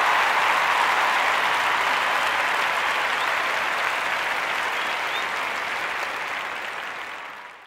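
Audience applauding, a dense even clatter of many hands that gradually fades out near the end.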